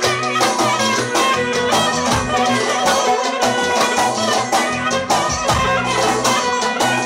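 Lively music with a melody over a steady drum beat.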